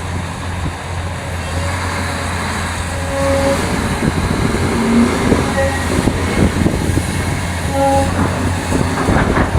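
Heavy diesel earthmoving machinery running steadily, with rattling and clanking that grows from about four seconds in and a few short tones.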